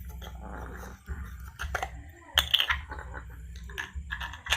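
Handling noise of small hard objects: a scatter of sharp clicks and clinks, the loudest about two and a half seconds in, over a steady low hum.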